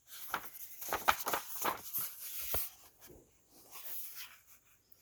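Paper rustling with light knocks and crackles as a picture book's page is handled and turned, busiest in the first two and a half seconds, with a fainter rustle near the end.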